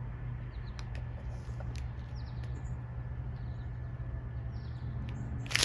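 Plastic bags of diamond-painting drills handled with a few faint clicks and rustles over a steady low hum, then a loud crinkle of plastic near the end.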